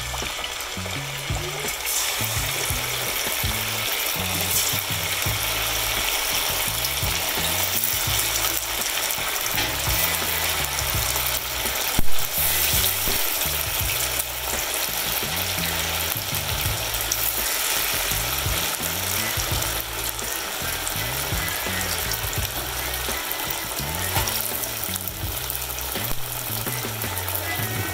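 Batter-coated potato slices sizzling and bubbling as they deep-fry in hot cooking oil. A single sharp knock about twelve seconds in.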